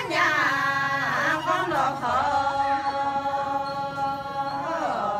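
Women singing a Miao welcome song a cappella, unaccompanied voices with sliding ornaments. A long note is held steady from about two seconds in and falls away in a glide near the end.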